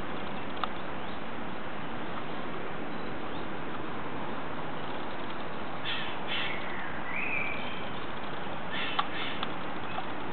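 A bird calls a few times in the second half, in short harsh bursts, over a steady even background noise.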